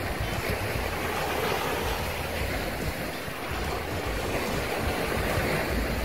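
Small sea waves breaking and washing through the shallows, a steady rush that swells twice, with a low rumble of wind on the microphone.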